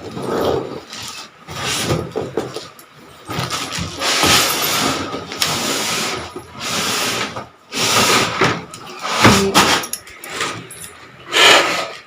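Irregular bursts of handling and tool noise, each about a second long, from fitting a new washing machine and its water pipes.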